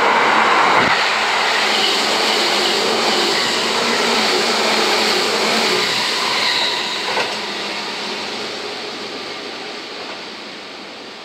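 Seibu 40000 series electric train running past close by, with the rumble of its wheels and motors loud for several seconds. There is a single knock about seven seconds in, and then the sound fades steadily as the train moves away.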